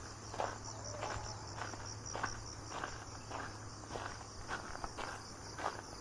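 A hiker's footsteps at a steady walking pace, about one step every 0.6 seconds, over crickets chirping steadily in a high-pitched, fast pulsing trill.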